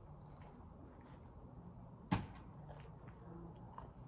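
A single sharp knock about two seconds in, with a few fainter clicks before and after, over quiet room tone.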